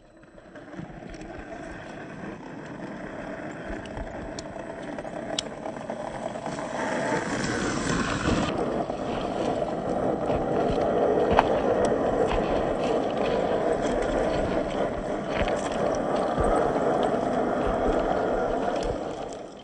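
A 1/10-scale RC crawler with a brushed motor drives over dirt and rock. Its motor and gears run steadily, with a few sharp clicks from the tyres on stones. The sound grows louder over the first half, then holds steady.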